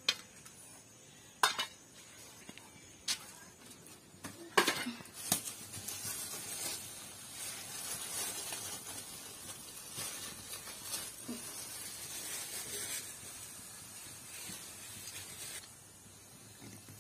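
Steel bowls and a spoon clinking sharply a few times. Then, about five seconds in, a steady sizzling hiss from a hot steel kadai runs for about ten seconds and stops near the end.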